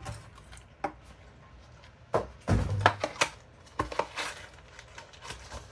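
Small metal parts clinking and clattering as loose screws and hardware are rummaged through and handled, with the busiest, loudest clatter a little past the middle.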